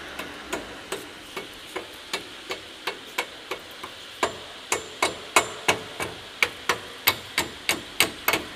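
Copper-headed hammer striking metal at a forklift tilt cylinder's rod-end mount on the mast, in a steady run of about three blows a second. The blows grow louder from about halfway through.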